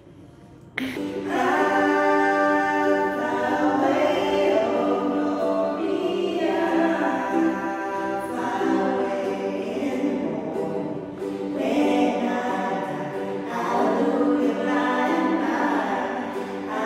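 Two women singing a song together to a strummed ukulele, starting abruptly about a second in.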